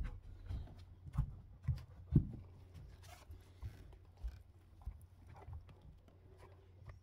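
Stiletto-heeled patent pumps stepping on carpet: dull muffled heel thuds, about two a second, growing fainter after the first few steps.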